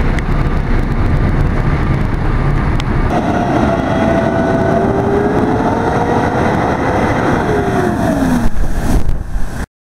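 CAT 660 water truck's diesel engine running while water sprays out of its spray heads. About three seconds in, the sound changes sharply. The engine's pitch then climbs slowly and falls away near the end, and the sound stops abruptly just before the end.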